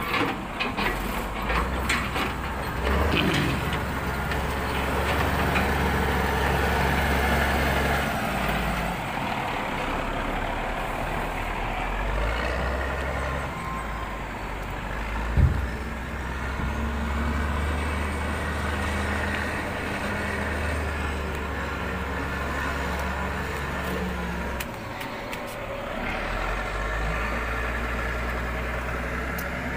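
Diesel engine of a Mercedes-Benz logging truck loaded with logs, running and manoeuvring, its note rising and falling in steps. A single loud thump comes about halfway through.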